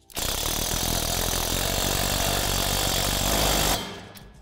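Cordless impact driver running in one continuous burst of about three and a half seconds as it drives a bolt. It starts just after the opening and stops shortly before the end.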